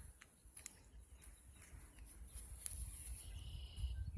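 Quiet outdoor pasture ambience: a low wind rumble on the microphone, a steady high hiss and a few soft rustles, with a short high bird call a little after three seconds in.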